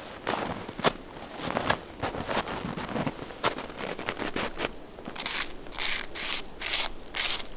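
Footsteps crunching in deep snow at a walking pace, about two steps a second, each step a short crisp scrape; the steps turn sharper and brighter in the last couple of seconds.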